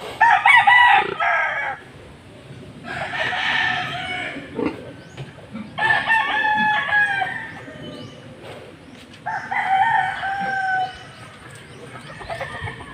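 Roosters crowing: four long crows about three seconds apart.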